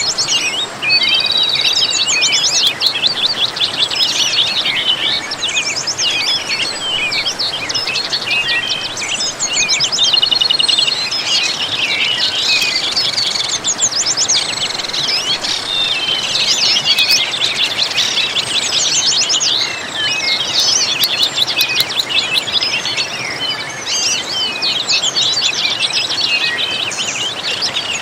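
A chorus of many birds chirping, trilling and singing at once, over a steady background hiss.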